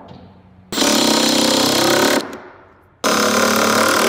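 Cordless impact driver rattling as it drives screws into an oak tabletop, in two runs of about a second and a half each.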